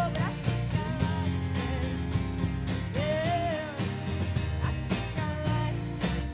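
Live band playing a song: acoustic and electric guitars over bass and a drum kit. About three seconds in, a melody line bends up and falls back down.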